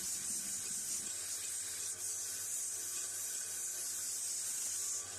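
Belt sander with a 120-grit belt grinding the edges of a malleable iron clamp: a steady, even, high hiss.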